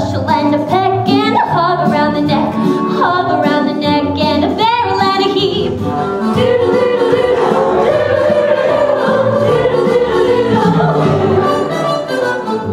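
Female singing with vibrato over a musical accompaniment, then from about six seconds in a long held note from the ensemble.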